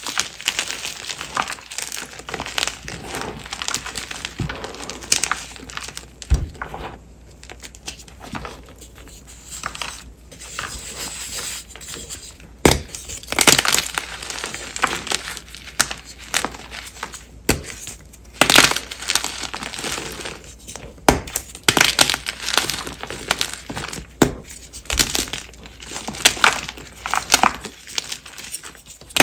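Blocks of Ader gym chalk (magnesium carbonate) being crushed and crumbled by hand: dry, irregular crunching with louder sharp snaps here and there as harder pieces break.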